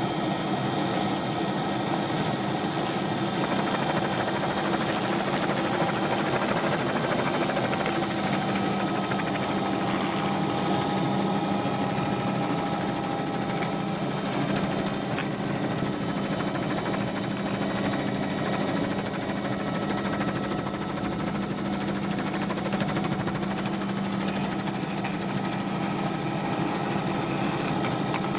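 Helicopter heard from on board: a steady drone with a few unchanging tones, the pitch holding level throughout.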